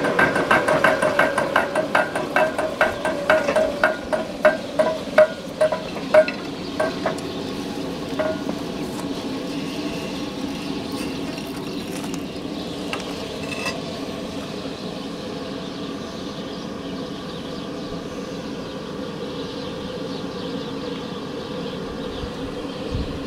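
Rapid, evenly spaced hammer blows on hot steel, about three a second with a ringing note, thinning out and stopping about seven seconds in. A steady machine hum runs on after that, with a few light metal clinks.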